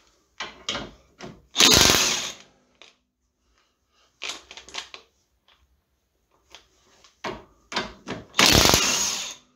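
Power wrench, likely an impact wrench, run in two short bursts, about two seconds in and near the end, undoing the control-arm bolts. Short clicks and knocks of tools on metal come in between.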